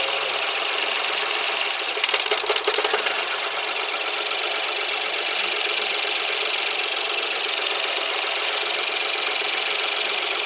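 Car engine running steadily, with a brief burst of rapid ticking about two seconds in.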